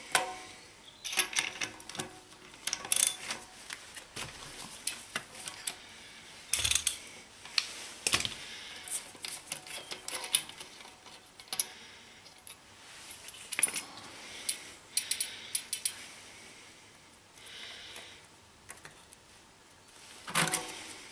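Steel sprockets and spacers of an 11-speed 11-32 road cassette clinking and jangling as they are worked off a bicycle freehub by hand, in irregular clusters of sharp metallic clicks and rattles.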